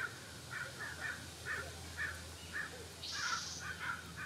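Crows cawing over and over in short calls, about two or three a second. A brief high hiss comes about three seconds in.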